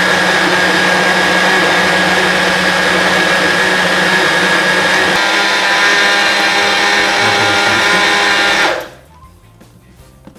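Electric countertop blender running steadily, blending a fruit, yogurt and milk smoothie, then switched off suddenly near the end.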